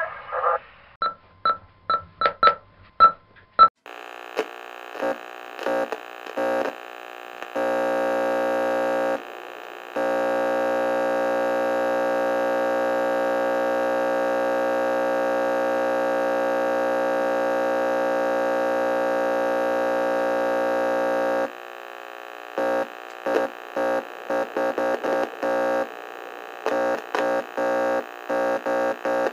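Radio sound effect: a quick run of short electronic ticks, then a steady, buzzy electronic tone switching on and off in choppy bursts. About ten seconds in, the tone holds unbroken for roughly ten seconds, then goes back to stuttering on and off.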